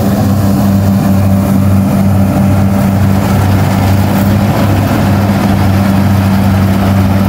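Kubota DC-60 rice combine harvester's diesel engine running steadily with a constant low hum as the machine cuts through the rice.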